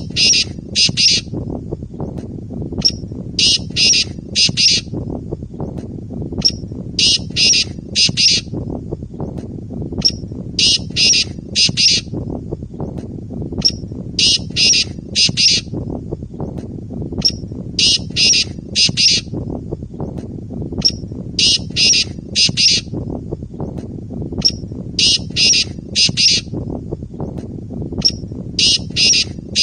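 Male black francolin (kala teetar) calling: a short note followed by three or four quick notes, the phrase repeated about every three and a half seconds, over a steady low background noise. This is the call rendered in Urdu as "Subhan teri qudrat".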